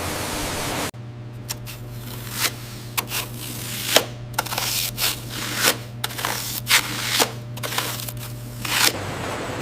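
Processing machinery running with a steady low hum and irregular clicks and clattering knocks. The hum and clatter start suddenly about a second in and stop near the end, giving way to an even hiss.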